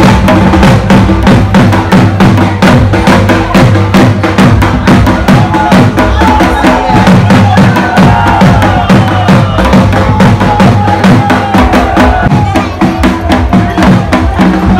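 Loud dance music with a heavy, fast drumbeat over a steady bass, and a wavering melody across the middle.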